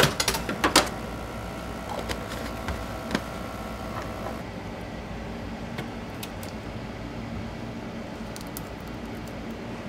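Light clicks and taps of glass slides and small lab items handled on a stainless-steel bench, bunched in the first second with a few more up to about three seconds in, over a steady low hum.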